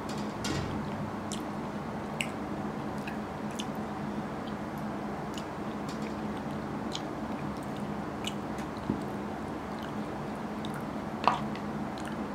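Eating curry rice with a metal spoon from a bowl: chewing and small clicks and scrapes of the spoon against the bowl, the sharpest clink about eleven seconds in, over a steady low hum.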